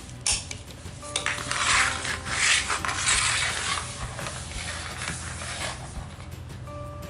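Plastic Happy Meal pig-launcher toy being handled and reset, a mechanical clattering, loudest between about one and four seconds in.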